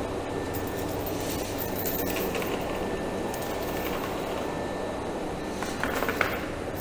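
Steel chain rattling link over link as it is pulled out of a plastic bucket and paid out across a concrete floor, with a few sharper clinks about six seconds in, over a low steady hum.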